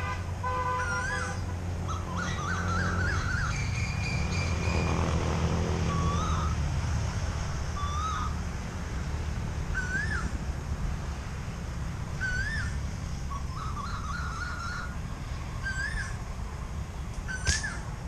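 Asian koel calling: one short rising-and-falling whistle repeated about every two seconds, with faster bird warbling twice. Near the end comes a single sharp snap, the slingshot shot that brings a bird down.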